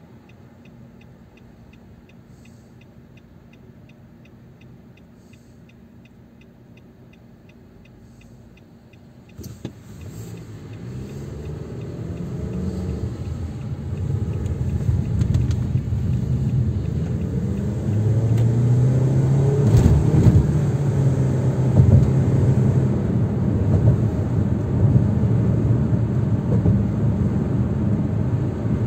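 Car driving heard from inside the car. At first it is quiet with faint regular ticking while the car waits in traffic. About a third of the way in, engine and road noise rise sharply as the car pulls away and gathers speed, settling into a loud steady rumble with a low engine hum.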